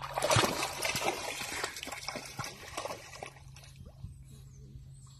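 A pug splashing as it wades into a muddy pond, loudest in the first second, then dying down to soft sloshing and trickling as it starts to swim.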